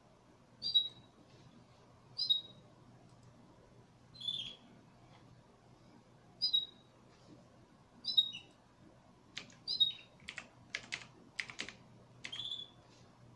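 A small bird chirping, short high chirps about every two seconds. A quick run of computer mouse clicks comes near the end.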